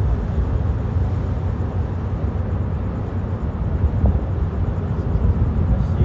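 Low, steady rumble of the passenger ferry Lobo Marinho's engines as the ship moves slowly past close by.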